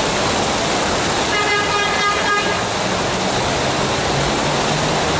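Heavy rain pouring steadily. About a second in, a bus horn sounds for about a second, and after it a bus engine's low drone comes through the rain.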